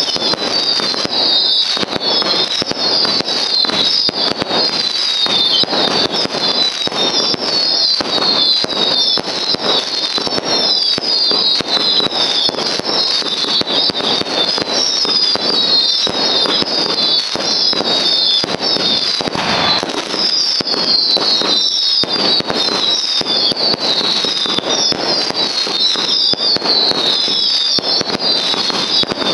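Fireworks going off in a dense, continuous barrage of rapid bangs and crackles. Shrill whistling fireworks ride on top, each whistle falling in pitch, one after another.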